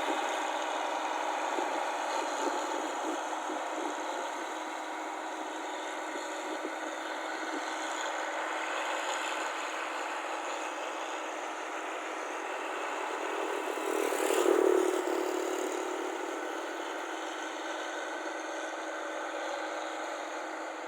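Rice combine harvester's engine running steadily, with a louder swell about fourteen seconds in.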